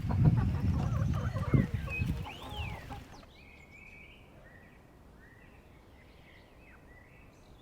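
Chickens clucking over outdoor noise for about three seconds. The sound then drops off sharply, leaving faint, short bird calls.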